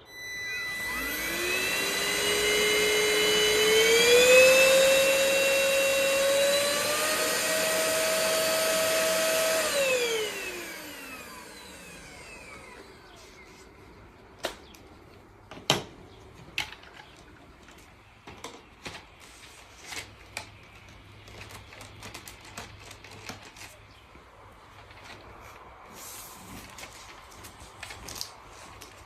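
Cordless upright vacuum cleaner's motor switched on and whining up to speed, its pitch stepping higher twice over the next several seconds. About ten seconds in it is switched off and winds down over a couple of seconds. Scattered clicks and knocks of handling the vacuum follow.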